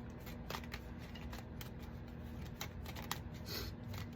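Tarot cards being handled and shuffled: faint, irregular light clicks and rustles. A low steady hum lies underneath.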